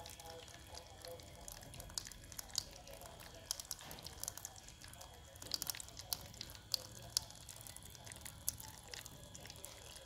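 Water trickling and splashing in a small cement tabletop fountain as it falls from tier to tier and from spouts into the basin, with irregular drips and little splashes.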